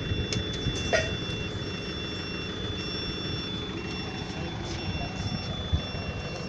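Steady low engine rumble of machinery on an airport apron, with a continuous high whine and a repeating electronic beep that alternates between a lower and a higher pitch, like a reversing or warning alarm. A light knock about a second in.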